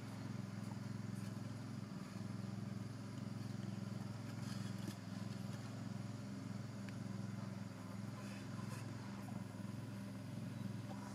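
Steady low hum of an engine running, with a few faint light clicks.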